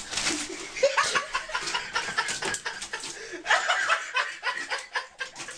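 A person laughing in quick, breathy bursts, over and over.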